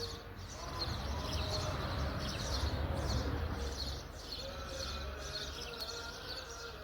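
Small birds chirping repeatedly, with a low rumble and a hiss swelling over the first few seconds and then easing.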